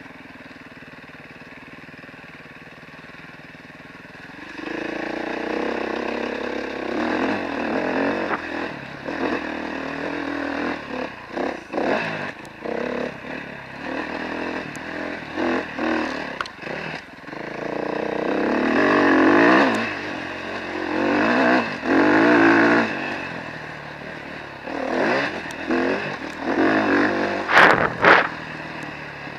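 Dirt bike engine running quietly for the first few seconds, then repeatedly opening up and backing off as the rider throttles through a motocross track. A couple of sharp clattering knocks near the end are the loudest moment.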